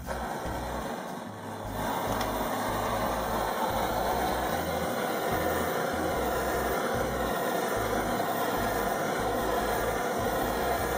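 Handheld Campingaz gas blowtorch burning steadily, heating an aluminium Motobécane AV7 crankcase half so the bearing will slip over the freezer-chilled crankshaft. The steady flame noise sets in about two seconds in.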